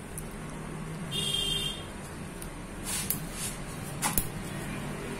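Light clicks of a metal utensil against dishes, with a short high-pitched tone of a few stacked pitches about a second in, over a low steady hum.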